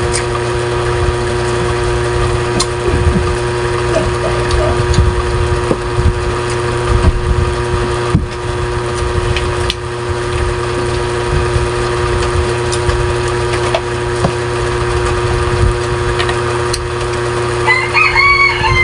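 A rooster crowing once near the end, over a steady hum with a low rumble and a few light clicks.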